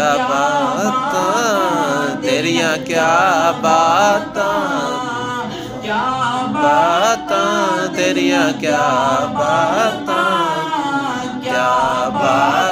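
A man singing a Punjabi naat unaccompanied, in long melodic lines whose pitch waves and glides, with brief breaths between phrases.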